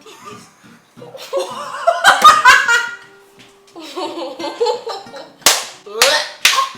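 People laughing, then sharp rhythmic smacks, like hands clapping or slapping, about two a second starting near the end.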